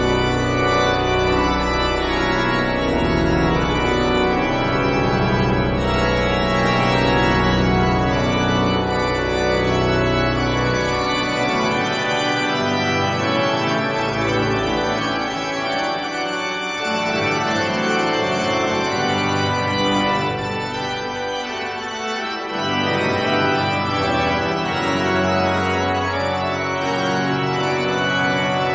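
Church organ playing the closing voluntary in slow, sustained chords. The deep pedal bass drops out a little before halfway and comes back about three quarters through.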